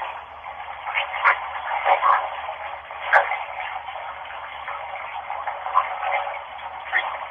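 Running tap water heard as a steady, thin hiss with a few brief faint blips in it.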